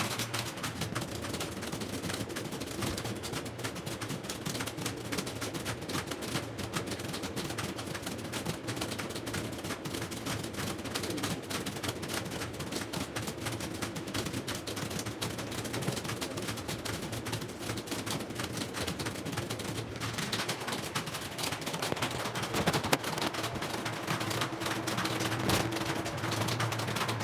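Many computer keyboards clattering at once as a roomful of students type nonstop, a dense unbroken patter of key clicks over a faint steady low hum.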